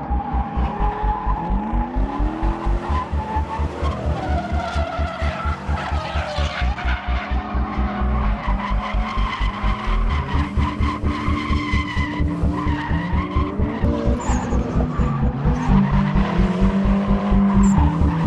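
Drift cars sliding, with engines revving and tyres squealing, mixed under a music track with a fast, steady beat.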